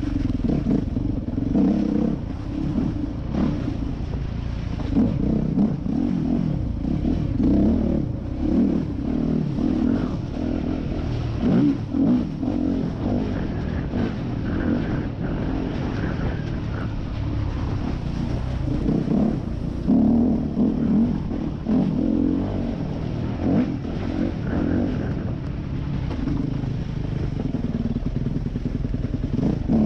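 Yamaha YZ250F four-stroke single-cylinder dirt bike engine running at low trail speed, the throttle opening and closing every second or two, with scattered knocks as the bike rides over rough ground.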